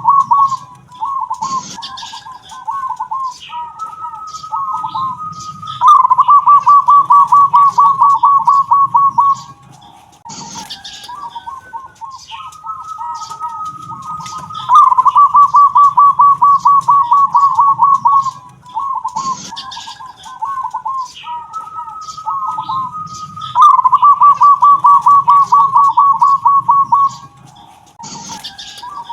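Local zebra dove (perkutut) singing its 'kung'-type cooing song, three times over about every nine seconds. Each bout is a string of short coos followed by a long, loud, rapid run of notes.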